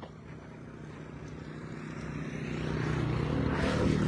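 A motor vehicle approaching and passing close by, its engine hum growing steadily louder, loudest near the end.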